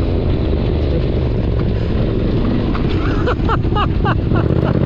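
Adventure motorcycle engine running steadily under way, with a run of short rising sounds about three seconds in.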